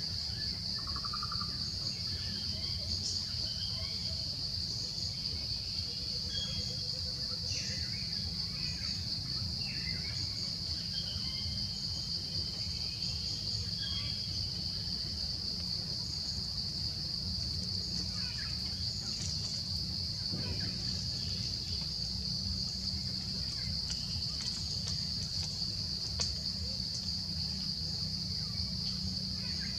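Steady, high-pitched drone of forest insects, with scattered short bird chirps over a low steady rumble.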